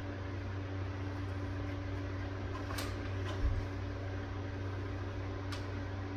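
Steady machine hum with a held low tone, with a few faint clicks and one soft low bump about midway.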